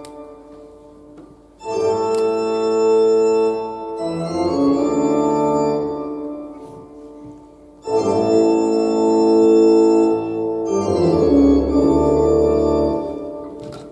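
Organ-like keyboard music: long sustained chords in two phrases, the first coming in about one and a half seconds in and the second about eight seconds in, each swelling and then fading.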